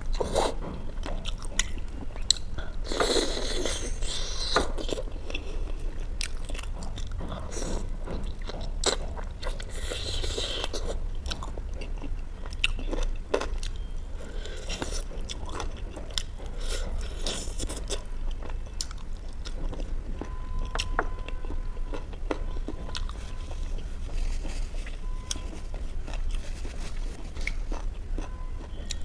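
Biting into and chewing saucy pieces of butter chicken held in the hands, with many short mouth clicks throughout and a few louder crunchy bites.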